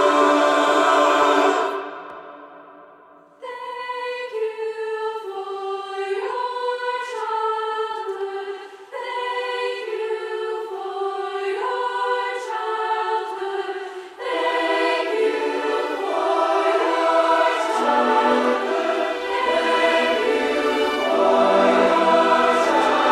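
Show choir singing without words: a full held chord fades out about two seconds in, and after a brief lull a lighter stepping melody enters. About fourteen seconds in the fuller choir swells back in, with lower voices joining a few seconds later.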